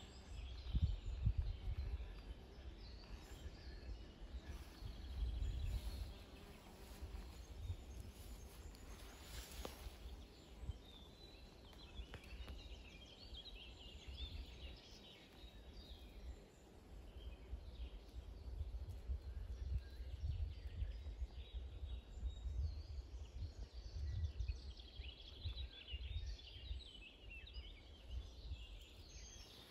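Wind buffeting the microphone in gusts, with songbirds chirping faintly in the background.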